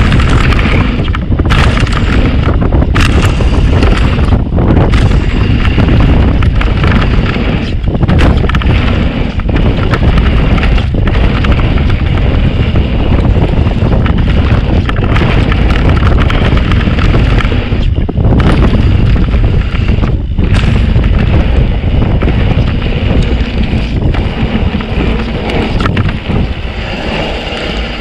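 Wind buffeting the camera microphone with a steady rumble, as from a mountain bike running down a dirt trail; it eases off slightly near the end.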